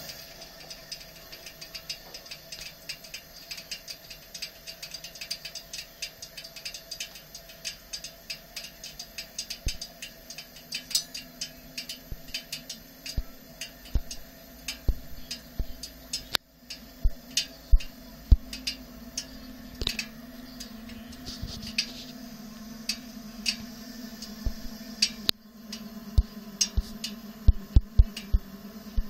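Coleman 413C white-gas camp stove burner running low with a steady hiss, while the burner ring, fading from red-hot as the flame is turned down, gives off many irregular sharp metallic ticks that grow louder and more frequent after about ten seconds.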